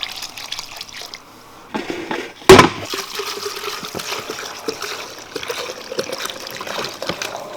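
Liquid splashing and trickling as metal parts are handled in a rust-remover bath, with two sharp knocks about two seconds in.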